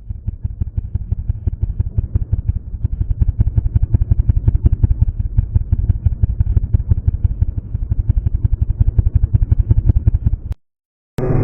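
Low, rapidly pulsing rumble presented as the call of the giant moa, a reconstructed sound effect for an extinct bird. It cuts off abruptly near the end, and after a brief silence a different, steadier sound starts.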